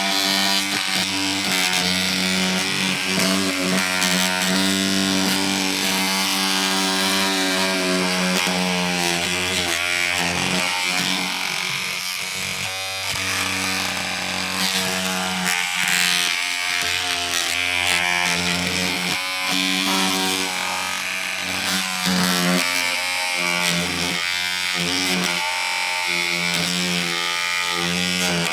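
A small electric motor buzzing steadily, its hum shifting slightly in pitch and briefly dipping a few times.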